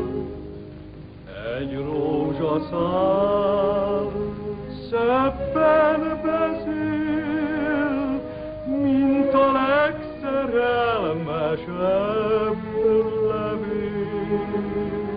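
A man singing an operetta song in long held notes with strong vibrato over instrumental accompaniment; the voice comes in about a second in.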